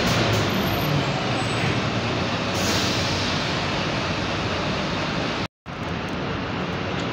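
City bus engine running as the bus pulls away, with a short hiss of air from its brakes about two and a half seconds in. The sound drops out for an instant near the end, then another bus is heard idling.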